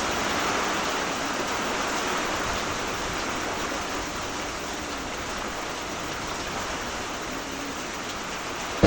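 Heavy rain falling steadily as a dense, even hiss. A sudden knock comes right at the end.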